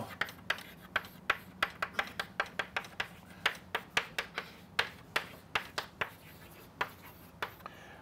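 Chalk writing on a blackboard: a quick irregular run of sharp taps and short scratches as the letters go down, thinning out near the end.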